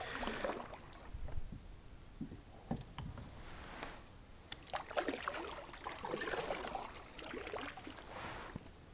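A kayak under way: water swishing and splashing against the hull in irregular strokes, with scattered light knocks and clicks.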